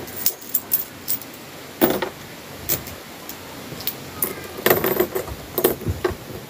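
Peso coins clinking as they are stacked by hand on a table: scattered sharp metallic clicks, coming thicker about four to five seconds in.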